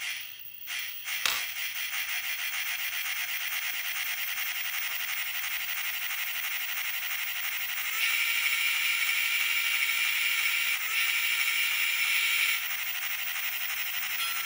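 Steam locomotive sound from a DCC sound decoder playing through a small speaker: a couple of clicks at the start, then a steady hiss. About eight seconds in, the whistle function (F2) is switched on and a steady whistle tone sounds over the hiss for about four and a half seconds, with a brief break near eleven seconds, before it is switched off.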